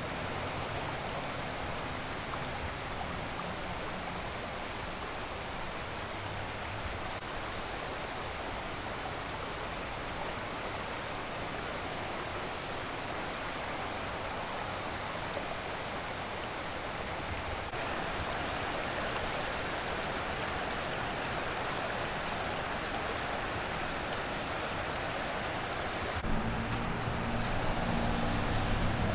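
Steady rushing of running floodwater. About three seconds before the end the sound changes and a low engine hum of traffic comes in.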